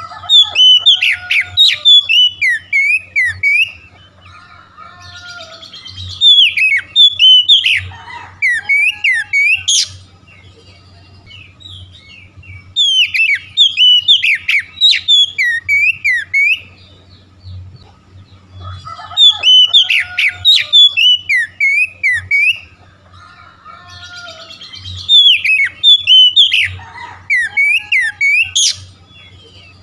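Oriental magpie-robin (kacer) singing: loud phrases of varied whistles and chirps, each a few seconds long, repeated about every six seconds with quieter twittering between them.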